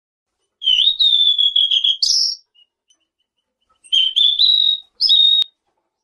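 Songbird known in Indonesia as selendang biru singing two phrases of clear, high whistled notes. The first begins about half a second in, the second about four seconds in, and each climbs to a higher note near its end.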